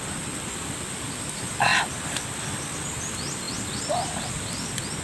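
Animal calls: one short, loud call about one and a half seconds in and a fainter one near the end, with a few quick high chirps between them, over a steady high-pitched buzz.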